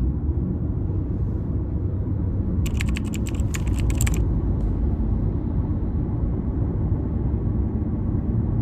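Steady low road rumble, as heard inside a moving car, with a quick run of small clicks about three seconds in.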